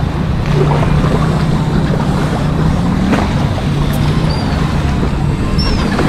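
A boat engine running steadily, a low even hum, with a couple of short, faint gull cries about four and six seconds in.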